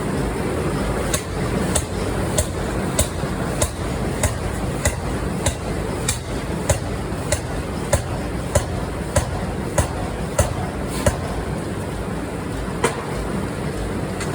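Forging machinery striking hot steel in a steady rhythm, a sharp metallic blow about every 0.6 seconds, over steady factory noise. The blows stop near the end, with one last strike after a short gap.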